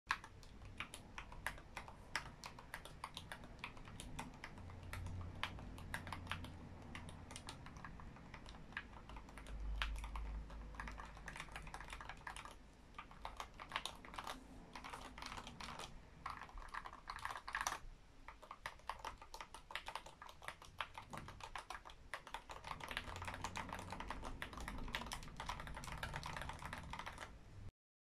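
Fast, random typing on an NK65 Entry Edition mechanical keyboard with lubed, spring-swapped C³Equalz x TKC Banana Split tactile switches and SA Royalty keycaps: a dense, steady patter of keystrokes that cuts off abruptly near the end.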